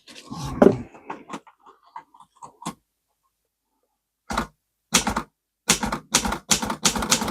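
Keys of a 1932 Klein Continental portable typewriter being pressed, the typebars clacking: some clatter and scattered clicks in the first couple of seconds, a short pause, then a quick run of strikes, several a second, from about four seconds in. The typebars are sluggish with old gunk in the segment, and penetrating oil is being worked in to free them.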